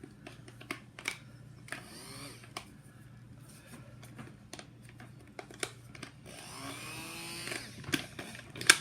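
Electric blender running as Oreos, ice cream and milk are blended, with scattered clicks and knocks; the motor sound swells near the end.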